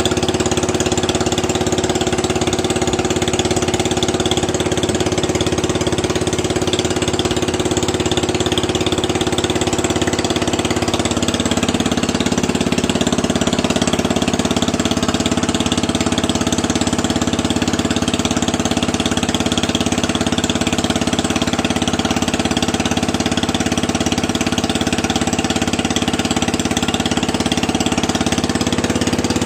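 Engine of a water pump draining a fish pond, running steadily; its note shifts slightly about eleven seconds in.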